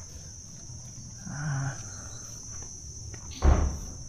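Steady high-pitched drone of insects. A short low hum-like call comes about a second and a half in, and a brief loud rumble near the end is the loudest moment.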